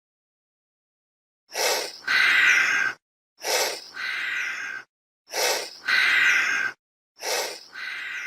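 Chameleon hissing: four pairs of breathy hisses, each a short hiss followed by a longer one, repeating about every two seconds with dead silence between.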